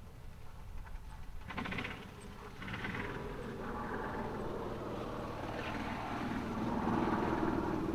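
A motor vehicle approaching, its running noise growing louder from about a second and a half in and peaking near the end.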